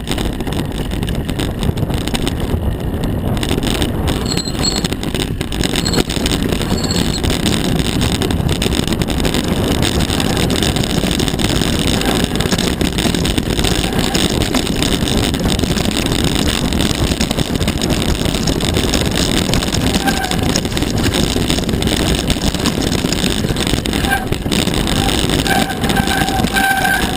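Wind buffeting an action camera's microphone along with the rumble and rattle of mountain bike tyres on a dirt and stony trail, a loud steady noise throughout, with a few brief high squeaks near the end.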